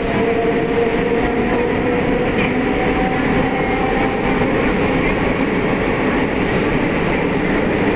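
Electric multiple unit (EMU) suburban train running, a steady loud rumble of wheels and carriage with a faint whine in it.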